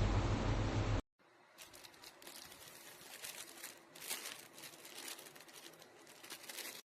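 A loud low rumble cuts off suddenly about a second in. It is followed by faint crinkling and scattered small clicks as small plastic items are handled.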